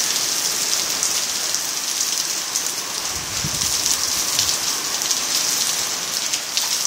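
Heavy rain pouring down onto a flooded gravel yard and its puddles: a steady, dense hiss of downpour with scattered splashing.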